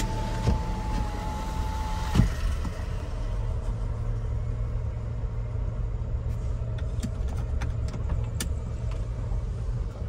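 Car power window motor whining steadily as the glass goes up, stopping with a thud about two seconds in. After that, the steady low rumble of the car heard from inside the cabin, with a few faint clicks.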